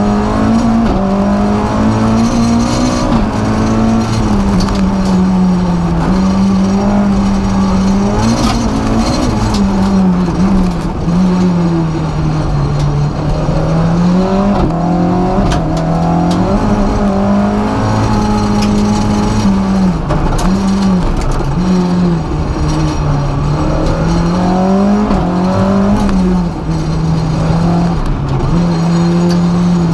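Renault Clio Sport F2000 rally car's 2-litre four-cylinder engine at full effort on a rally stage, heard from inside the cabin. The engine note climbs and drops again and again through gear changes, braking and hard acceleration.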